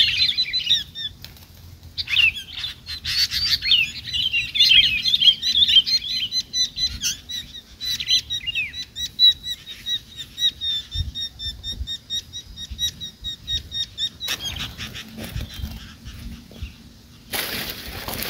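Sooty-headed bulbuls (kutilang) calling in quick, repeated chirps, with bursts of wing flapping from a bulbul caught on a glue (lime) stick and struggling to get free. The chirping is densest in the first half and thins to a repeated short call. Louder rustling bursts come near the end.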